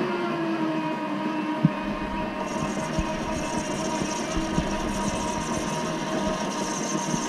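Chinese mini lathe running, its motor and gearing giving a steady whine of several tones, with a single knock about a second and a half in. From about two and a half seconds a higher hiss joins as the tool takes a light cut.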